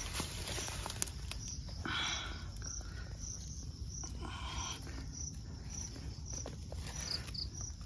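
Insects chirping in short, high-pitched pulses about twice a second, with a soft low rumble underneath. Dry grass rustles twice as a hand pushes it aside.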